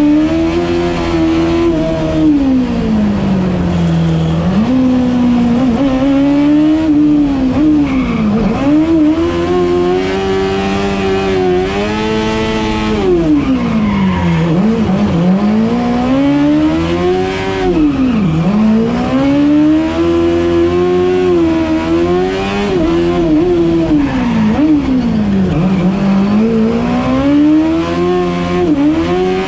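Honda Hornet 600cc inline-four motorcycle engine in a three-wheeled Piaggio Ape, heard from the cockpit, revving high and dropping back again and again every few seconds as it is drifted, with tyres squealing.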